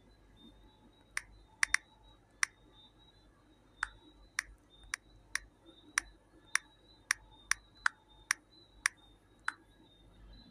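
Typing on a smartphone's on-screen keyboard: about sixteen sharp, separate clicks at an uneven pace, one per keystroke.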